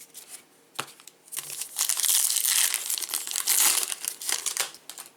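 A 2020 Topps Big League baseball card pack wrapper being torn open and crinkled. A dense, loud crinkling starts about a second and a half in and stops shortly before the end.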